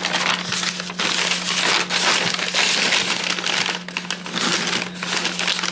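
Packing paper crinkling and rustling as it is handled and unfolded, with a steady low hum underneath.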